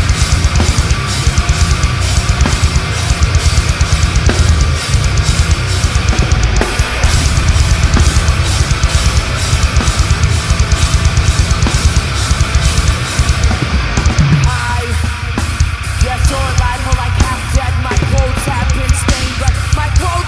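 Heavy metal band playing live: distorted electric guitar, bass guitar and a drum kit with fast, dense drum hits, all at full volume. A vocal part comes in over the last few seconds.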